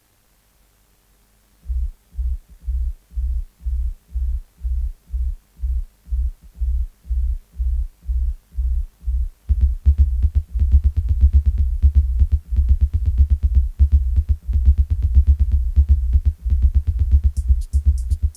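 Industrial electronic music from a drum machine and sequencer. After a near-silent start, a deep bass pulse beats about twice a second; about halfway through, a denser, heavier beat with clicking percussion kicks in, and fast high hi-hat ticks join near the end.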